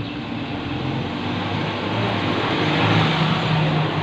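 Steady road-traffic rumble and hiss, building to its loudest about three seconds in and easing off near the end.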